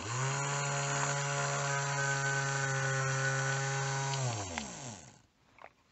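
The small brushed DC motor of a vintage Hasbro GI Joe Sea Sled runs on a quick hot test with a steady whine, then is cut off about four seconds in and winds down, falling in pitch for about a second. The rebuilt brushes, held on straight pins in a new insulator strip, are working: the 50-year-old motor runs.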